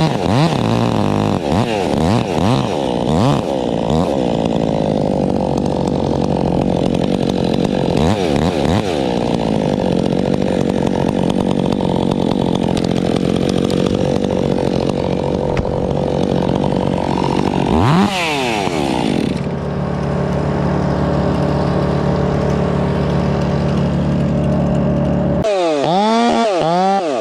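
Chainsaw running continuously, revved up and down several times with steadier running between the revs.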